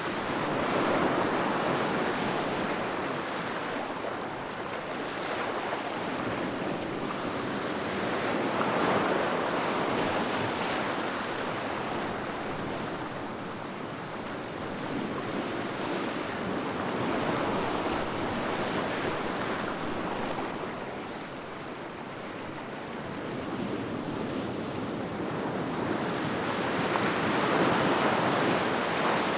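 Sea waves breaking and washing on a shore in a steady rushing surf. The surf swells and falls back every several seconds, with a louder wave about a second in, another near nine seconds, and one near the end.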